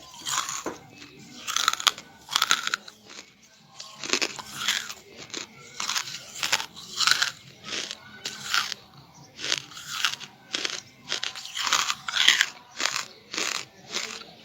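Close-up crunching of someone biting and chewing brittle charcoal, in crisp crunches about one to two a second.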